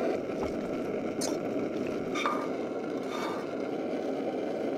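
Egg and green onions frying in a pan with a steady hiss, while a spatula scrapes and knocks across the pan about once a second.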